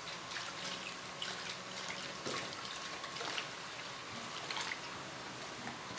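Wooden spoon stirring a thin, watery liquid soap mixture in a large plastic tub: the liquid sloshes and drips, with scattered small splashes and ticks throughout.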